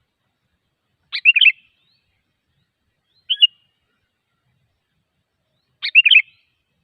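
Sooty-headed bulbul (kutilang) calling: two short bubbly phrases of a few quick notes, one about a second in and one near the end, with a single short note between them.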